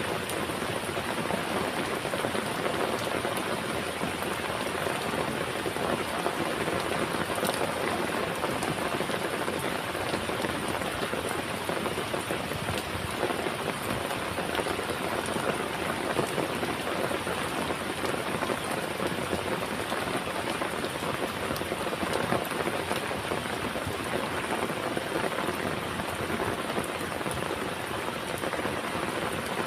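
Heavy rain falling steadily, with a dense patter of raindrops on a surface.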